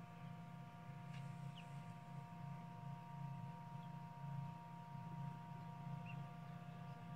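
Steady hum of an egg incubator's fan and motor, with a few faint, short high peeps from a hatching chick.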